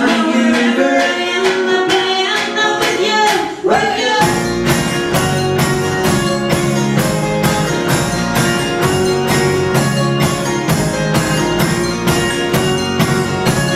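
A band playing a song live. About four seconds in, the bass and a steady beat come in under the melody and the music carries on at full band.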